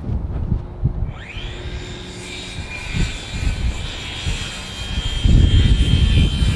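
Jet aircraft passing overhead: a high turbine whine with a rushing hiss that sweeps up about a second in, holds steady, then starts to fall away near the end. Low wind rumble on the microphone grows louder over the last second or so.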